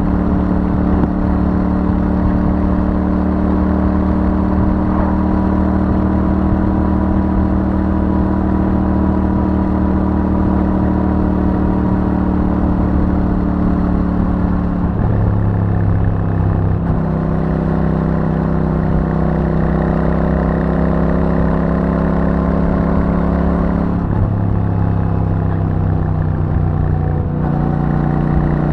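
Royal Enfield Super Meteor 650's 648 cc parallel-twin engine running through its stock exhaust while cruising, a steady note under load. The engine note changes briefly about halfway through and again near the end, as the throttle or gear changes.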